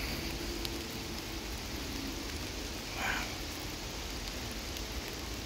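Steady rain falling in woodland, an even hiss with a few sharp drop ticks, and one short faint sound about three seconds in.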